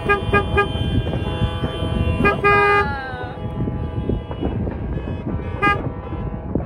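Vehicle horns honking: a quick run of short toots, a longer blast about two seconds in whose pitch slides down as it ends, and another short toot near the end. Beneath them runs a dense low rumble.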